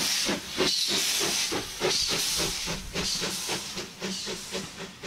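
Stroudley Terrier tank locomotive moving off with its train: a steady hiss of steam with a quick, even run of exhaust beats, about four a second, getting quieter near the end.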